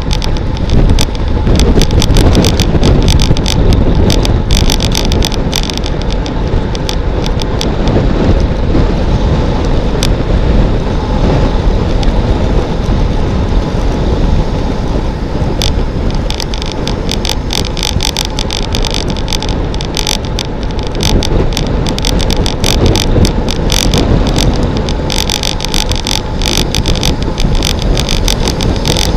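Wind buffeting the microphone of a bike-mounted camera on a road bike descending at around 50 km/h: a loud, steady rushing rumble with a constant crackle over it.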